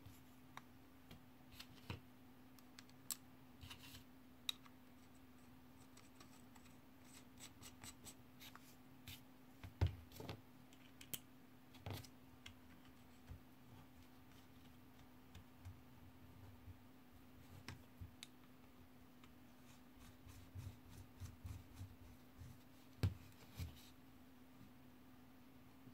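Small metal clicks and clinks as the parts of a vintage Sachs Torpedo Jet coaster-brake hub are handled and fitted: sprocket, axle nuts and washers. There is a quick run of ticks about seven to nine seconds in and two louder knocks, near ten seconds and near the end. A faint steady hum runs underneath.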